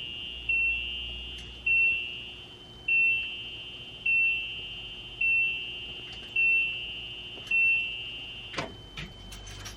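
An electronic warning chime beeping about once a second with the ignition on, while the RV's engine does not start; it stops near the end and a few clicks follow.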